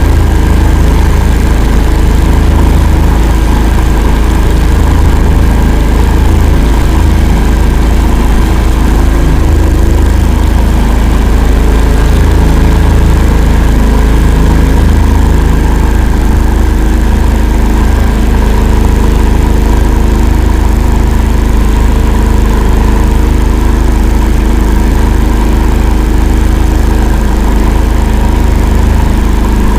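Engine of an "Akula" swamp-going all-terrain vehicle running steadily as it drives, a loud, even low rumble with a steady hum over it.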